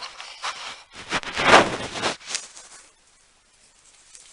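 A few short rubbing and scraping sounds, the loudest about a second and a half in, then quiet: a sponge of light oil being wiped over an old painted sheet-metal set of drawers.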